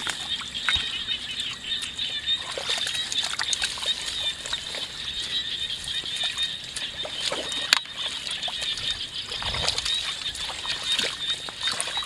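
Water splashing and trickling, with scattered small clicks and a heavier low splash about nine and a half seconds in, over a steady high-pitched outdoor chorus.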